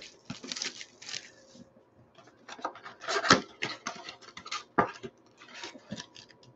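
Hands opening a Panini Contenders trading-card blaster box: irregular crinkling of the plastic wrapper and scraping and tearing of the cardboard packaging, with sharper crackles about three seconds in and again near five seconds.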